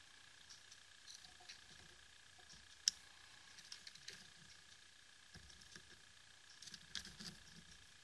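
Faint scattered clicks and light scrapes of a small metal-tipped tool and fingertip working at the tiny side-switch circuit board of a BLF Q8 flashlight. One sharper click comes about three seconds in, and a cluster of clicks comes near the end.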